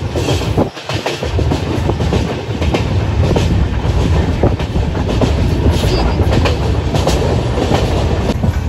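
Passenger train running, heard from an open carriage window: a steady rumble with the wheels clicking over the track. The low rumble grows stronger about a second in and then holds.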